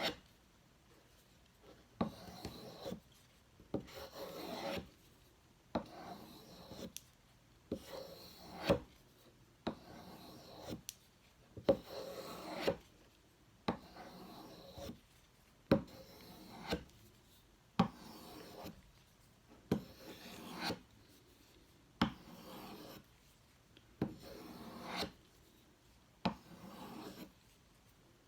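Knife blade drawn in repeated strokes across a sharpening surface, a rasping scrape about once a second, each stroke starting with a light click.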